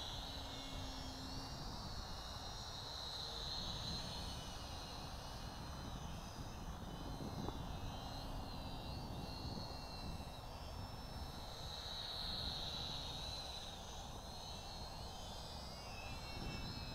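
Radio-controlled model plane's motor and propeller whining high overhead, the pitch wavering up and down and the sound swelling and fading twice as the plane flies past.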